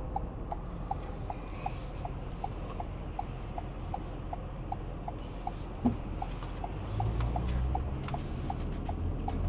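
Vehicle turn-signal indicator ticking steadily, a little under three clicks a second, over the low rumble of the engine and road. A single thump about six seconds in.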